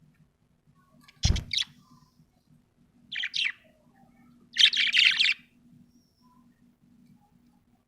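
Budgerigar chirping in three short bursts of rapid chatter, about one, three and five seconds in. The last burst is the longest and loudest, and the first comes with a low thump.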